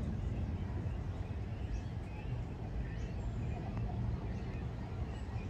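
Outdoor ambience: a steady low rumble with faint, short bird chirps scattered through it.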